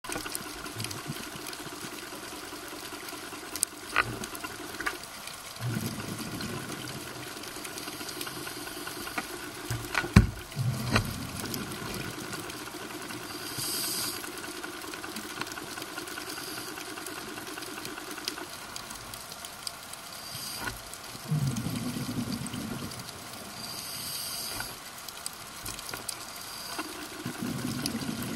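Scuba diver's regulator breathing underwater: a hiss of inhaled air twice, and low bubbling surges of exhaled bubbles about four times, in slow cycles. A few sharp clicks or taps sound near the start and in the middle.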